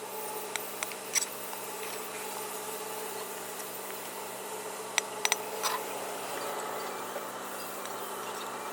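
Steady mechanical hum with a few sharp clicks or taps, one group about a second in and another around five seconds in.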